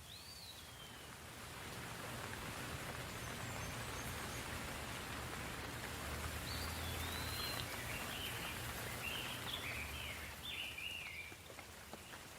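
Soft rain falling steadily, swelling after the first couple of seconds and easing near the end. A bird calls over it: one falling whistle at the start, then a run of chirps in the second half.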